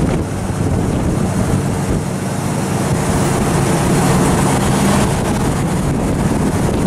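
Classic 1960s Pontiac muscle car driving slowly past, its engine running with a steady low exhaust note, with wind noise on the microphone.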